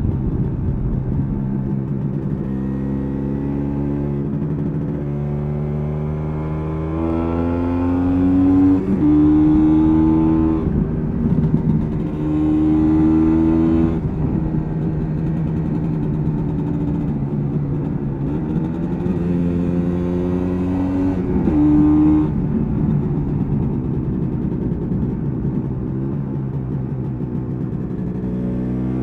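MZ ETZ 250's single-cylinder two-stroke engine running under way, heard from on board. It revs up several times and drops back between rises, as the bike accelerates and shifts gear.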